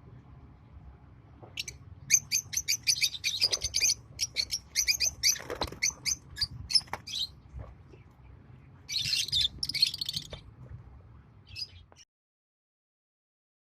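Lovebirds chirping: a rapid run of short, sharp, high-pitched calls, then two harsher squawks about nine seconds in, over a low background hum. The sound cuts off shortly before the end.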